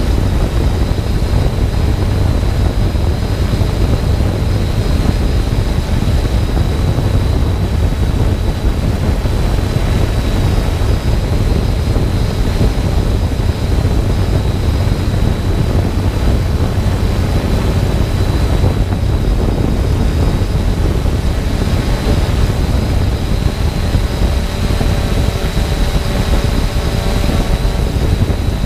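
Multirotor drone's motors and propellers heard from its own onboard camera while it hovers: a steady hum with a thin high whine, over heavy low rumble from wind and prop wash on the microphone. A few lower motor tones come in near the end.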